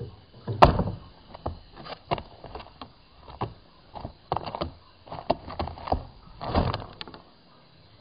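A series of irregular knocks and rattles, about a dozen, with the sharpest about half a second in and a longer clatter near the end.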